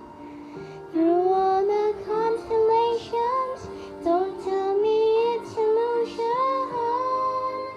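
A young girl singing a melody over a backing track, coming in about a second in with long, sliding, wavering notes.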